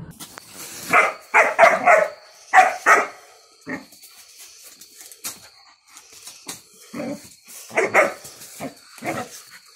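A dog barking in short, sharp barks: a quick run of them in the first three seconds, a single bark soon after, and another run near the end.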